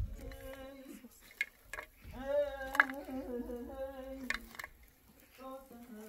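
A metal fork and skewer clink against each other and a plate as grilled kebab meat is pushed off the skewer: a few sharp, separate clinks, the loudest near the middle. A voice is heard in stretches alongside.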